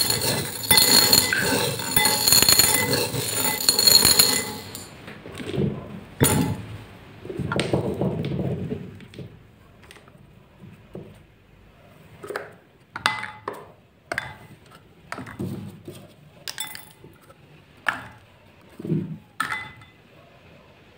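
Small beads stirred by hand in a glass bowl, clinking densely for the first four seconds or so. After that come a dozen scattered clicks and knocks as plastic pieces, a pop-it toy and small plastic cups, are set into the bowl.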